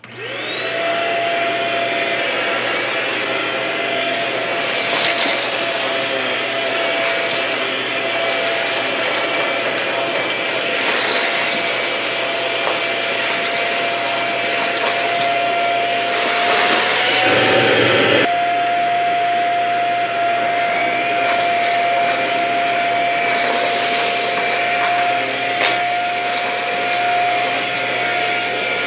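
Cordless stick vacuum switched on and running over a carpet rug, its motor spinning up to a steady high whine. At times it crackles as crumbly debris is sucked up. About two thirds of the way through, the pitch rises slightly and the sound breaks briefly before the motor settles again.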